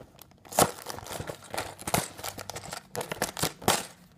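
Cardboard LEGO box being opened by hand: the flap is pried and torn open with several sharp snaps and rustling of cardboard.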